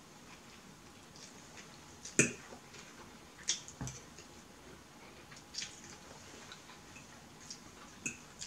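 Metal fork clicking and scraping on a plate of food during eating, a few scattered sharp clicks at uneven times, the loudest about two seconds in.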